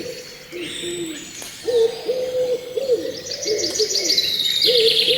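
Birds calling: a run of short, low calls on one steady pitch, repeated about twice a second. From about three seconds in, a rapid high twittering trill from another bird joins them and grows louder near the end.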